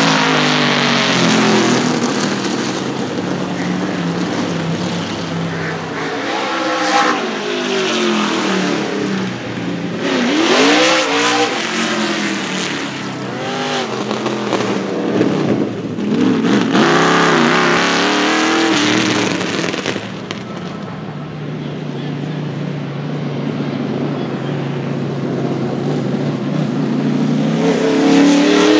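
NASCAR stock car V8 engines idling with a low, uneven rumble, the throttle blipped again and again so the pitch swoops up and falls back several times. The last third settles into a steadier idle, then a final rev comes near the end.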